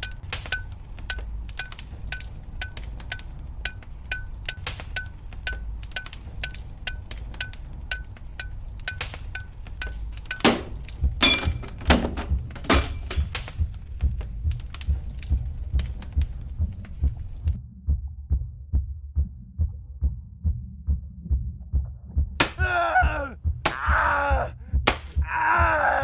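Layered sound-design montage: a steady run of light ticks at about two a second, then a few loud sharp knocks, then a low, steady thumping at about two a second. A voice comes in over the thumping near the end.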